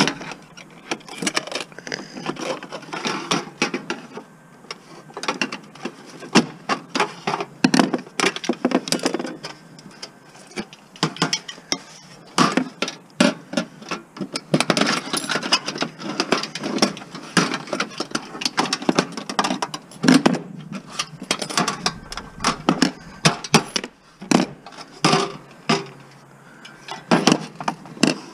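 Irregular clanks, clicks and rattles of metal parts and hand tools as a scrap electric stove is taken apart.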